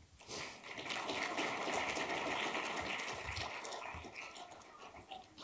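Audience applauding, a dense spread of claps that holds steady and then dies away near the end.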